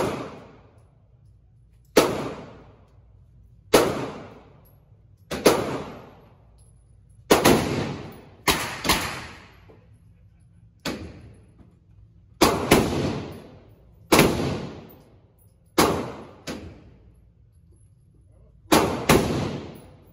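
Handgun shots fired on an indoor range: about fifteen sharp reports, one every second or two with some quick pairs, each followed by a short echo.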